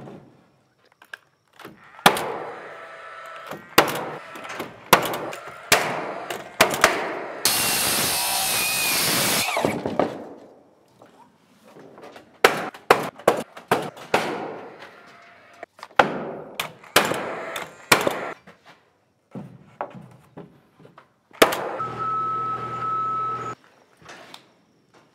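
Carpentry on wood framing: a run of sharp knocks and bangs on lumber, with a loud two-second burst of hissing noise about a third of the way in. Near the end a handheld power driver runs steadily for about two seconds.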